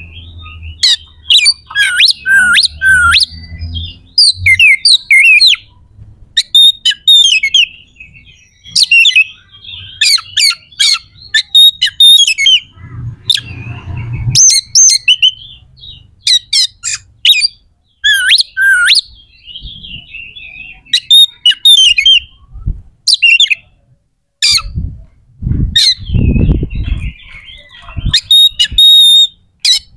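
Oriental magpie-robin (kacer) singing a harsh, rapid song: quick bursts of sharp whistles, chatters and clicking notes with short pauses between them. It is an aggressive, rough-phrased song of the kind played to rouse other kacer to fight. A few low thumps sound underneath near the middle and end.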